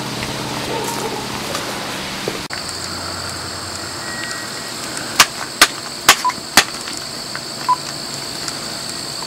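Cell phone keys being pressed one-handed: about five sharp clicks, roughly half a second apart, with a couple of short beeps, over a steady background hiss.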